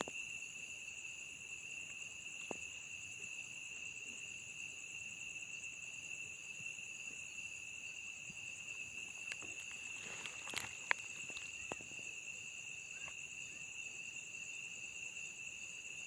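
Crickets trilling steadily at two high pitches in a night insect chorus, with a few faint clicks around ten seconds in.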